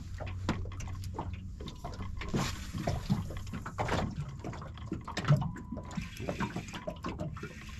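Small waves lapping and slapping against the side of a small boat, irregular splashes, with odd knocks and clicks from rod and reel handling.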